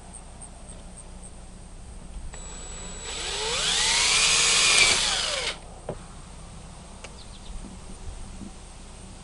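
Aerosol carburetor cleaner sprayed through its straw nozzle onto an outboard's carburetor. The hiss lasts about three seconds, carries a whistle that rises and then falls in pitch, and cuts off sharply.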